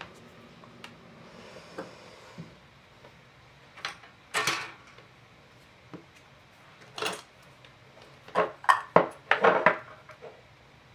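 Short clinks and knocks of small craft tools being handled on a tabletop, ending in a quick run of clinks as a paintbrush knocks against a small glass jar.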